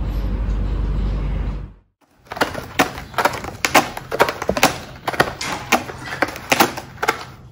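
Steady room noise with a low hum cuts off at a hard edit. Then comes a string of irregular crackles and scrapes, two or three a second, from a corrugated cardboard cat scratcher bed as a cat paws and noses at it.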